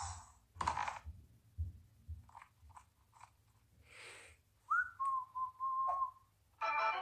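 A single whistle held for about a second and a half, a short rise and then one steady note, as a cartoon sound effect, after a few short soft noises. A music jingle starts near the end.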